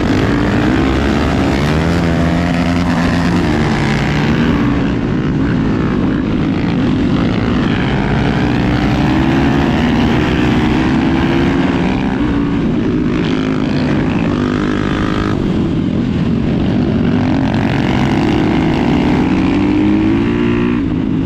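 Off-road motorcycle engine running under way. Its pitch climbs and drops again several times as the bike accelerates and eases off.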